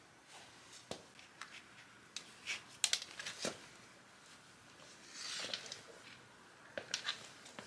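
Scattered light clicks and taps of small objects being handled, with a short rustling hiss about five seconds in.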